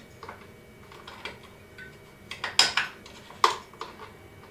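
Small metal parts, a bolt and washers for a belt sander's work-table handle, clinking and clicking as they are handled and fitted: a few faint ticks, then two louder metallic clinks about a second apart past halfway.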